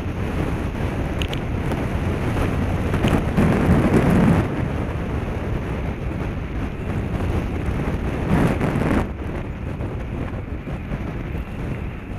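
Wind buffeting an action camera's microphone while it moves along a gravel road, a steady low rumble that swells louder twice, about four seconds in and again near nine seconds.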